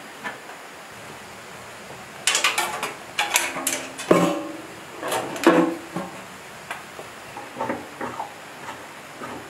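Metal clanking and knocking as a fuel tank and its cover are fitted onto a diesel engine: a run of loud clatter with some ringing from about two to six seconds in, then lighter taps.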